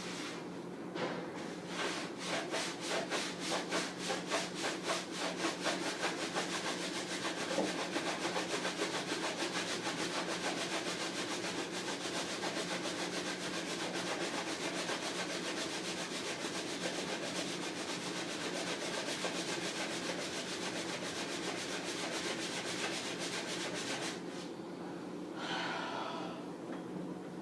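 Sponge scrubbing the inside of a refrigerator: quick back-and-forth rubbing strokes that start about a second in, run together into a fast continuous scrub, and stop a few seconds before the end.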